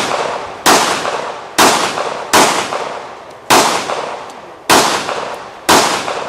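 Pistol shots fired at a steady pace: six shots about a second apart, each with a long echoing tail.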